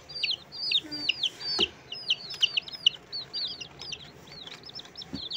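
A box of week-old and two-day-old chicks peeping without pause: a rapid string of high cheeps, each falling in pitch, several a second.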